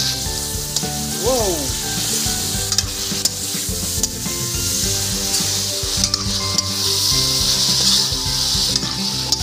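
Pork pieces sizzling in hot oil in an aluminium wok while a metal spatula stirs and scrapes them, with scattered clicks of the spatula against the pan. The sizzle is heavier at the start and again from about six seconds in.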